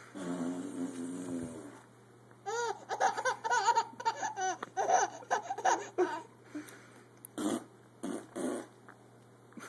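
A low, buzzing fart sound lasting about a second and a half, followed a second later by a baby laughing in a run of high-pitched laughs that rise and fall in pitch, with a few shorter laughs or breaths near the end.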